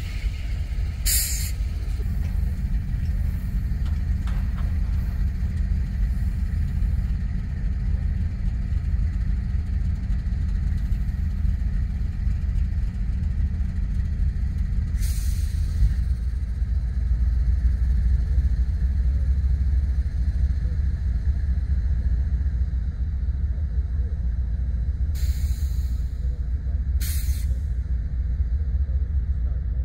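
Union Pacific train passing with a steady low rumble. Four short hisses come through: one about a second in, one midway, and two close together near the end.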